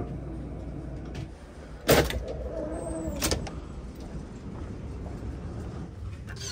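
Passenger elevator: a steady low hum while the car travels, a loud clunk about two seconds in as it stops, then the doors sliding open with a second knock a moment later.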